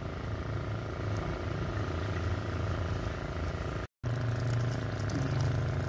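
Water running from a hose into a water pump's corrugated suction hose to fill it, over a steady low motor hum. The sound drops out for an instant about four seconds in.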